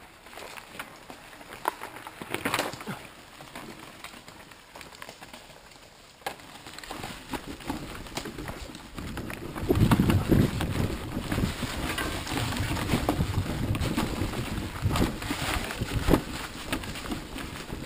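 Mountain bikes riding a forest dirt trail: tyres on dirt and leaf litter with the bike rattling and clicking over bumps. From about halfway a louder low rumble with frequent knocks takes over.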